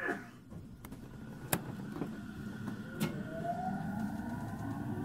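JR 313 series 300 subseries electric train running, its Toshiba IGBT VVVF inverter whine rising steadily in pitch from about two and a half seconds in as the train picks up speed, over a steady rumble. Two sharp clicks stand out, about a second and a half apart.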